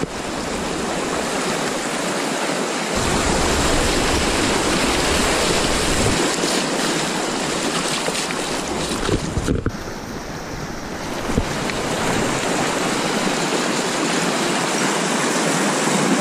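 Shallow, fast river rushing over stones close to the microphone: a steady, loud rush of water, with wind buffeting the microphone at times.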